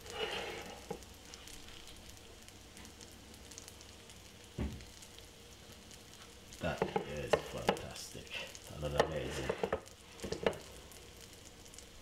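Food sizzling in a frying pan: a steady low crackling hiss, with a run of louder, irregular crackles and knocks from about halfway through.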